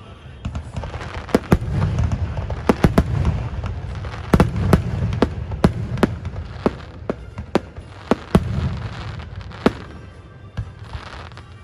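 Aerial fireworks bursting: a rapid series of sharp bangs, several close together, over a low rumble, thinning out near the end. Music plays underneath.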